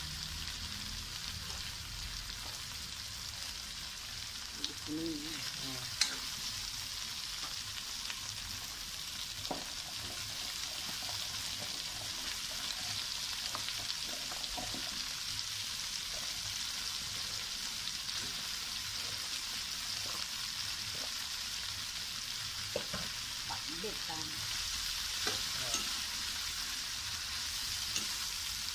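Pork, tomato and garlic sizzling in a hot metal wok as they are stir-fried, a steady frying hiss. A few sharp clicks of the metal spatula on the pan stand out. The sizzle gets a little louder about halfway through, as cut string beans and other vegetables go into the oil.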